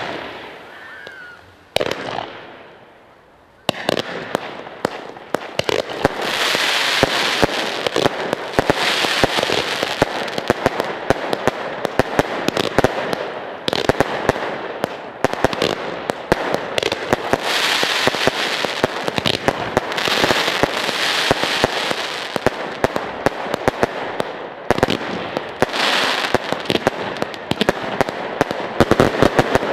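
Zena fireworks in a grand-finale barrage. Two separate bangs in the first two seconds are followed, from about four seconds in, by a continuous dense run of rapid bangs, crackling and hissing that swells and eases several times.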